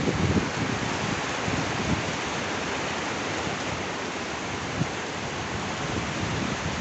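Steady heavy rain, a dense even hiss with low rumbling gusts that are strongest near the start.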